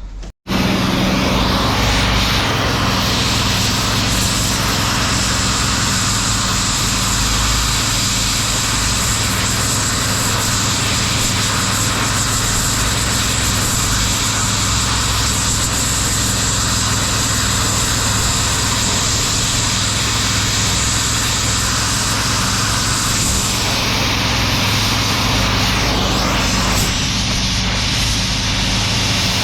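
Engine of an old scrap shear, just got going after sitting for about a year, running steadily and loudly with a hissing top. It cuts in abruptly about half a second in.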